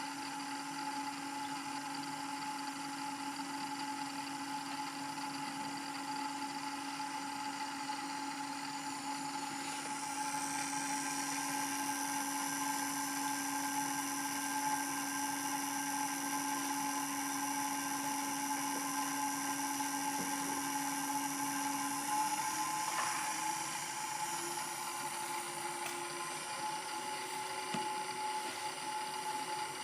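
Allen-Bradley servo motor running under test, giving a steady electric whine made of several pitched tones. About ten seconds in it gets a little louder and brighter, and about 22 seconds in its lowest tone rises slightly in pitch.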